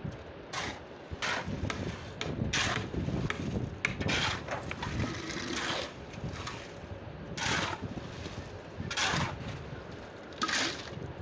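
Shovel scraping and scooping through wet concrete mix on a hard floor to load a bucket, in repeated strokes about one every one to two seconds.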